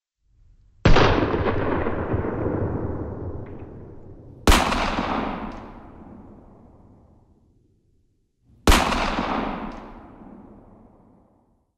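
Three dubbed-in gunshot sound effects about four seconds apart, each a sharp blast with a long echoing tail that fades over about three seconds.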